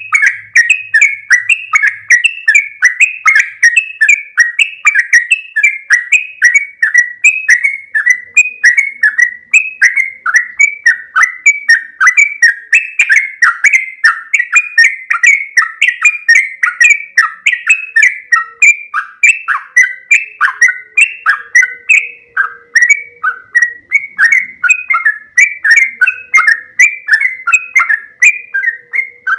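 Yellow-vented bulbul (trucuk) singing loudly and continuously, a run of bubbling notes at about three a second without a break.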